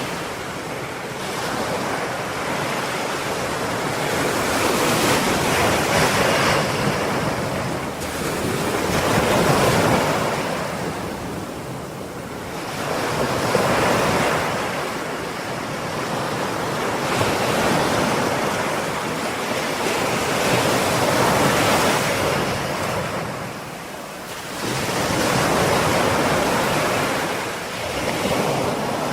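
Ocean waves breaking and washing on a shore, a continuous surf sound that swells and eases every few seconds.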